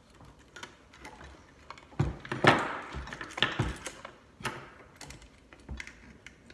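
Hands fishing for wires inside a garbage disposal's wiring compartment: light metallic clicks and rattles, with a louder burst of knocking and scraping about two to four seconds in.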